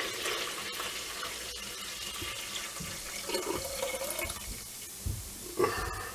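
Fermented wash poured from a glass jar into a metal still pot, splashing steadily and fading as the stream thins to a trickle. A light knock comes near the end.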